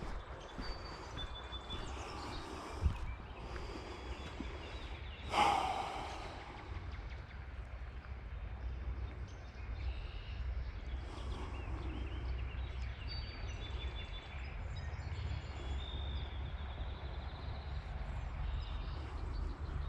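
Woodland ambience on a trail: faint, brief high bird chirps over a steady low rumble, with one loud breath from the hiker about five seconds in.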